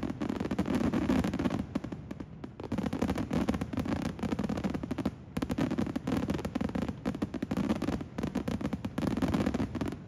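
Daytime aerial fireworks: a dense, continuous barrage of rapid bangs and crackling from many small bursts, easing off briefly about every three seconds before picking up again.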